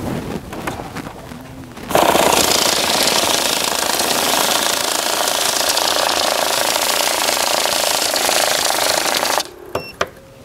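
Electric banknote counter riffling rapidly through a stack of bills: a loud, steady, fast rattle that starts about two seconds in, runs for about seven seconds and stops abruptly, followed by a few light clicks.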